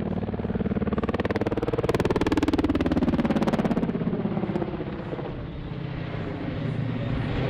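Kamov Ka-52 attack helicopter flying past: the rapid chop of its coaxial rotors swells to its loudest two to three seconds in, dropping in pitch as it passes, then eases off.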